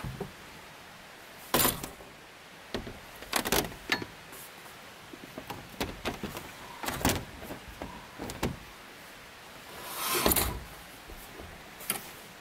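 A rigid solar panel's aluminium frame and its metal mounting brackets being handled and set onto a van's roof rails: irregular clunks, clinks and rattles, with a longer scrape about ten seconds in.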